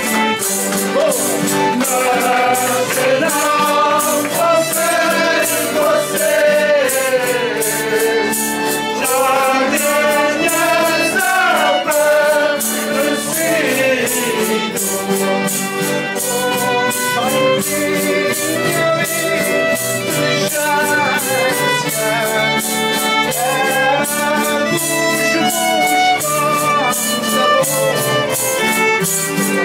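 Azorean folia group singing together in chorus to instrumental accompaniment, with a steady percussion beat.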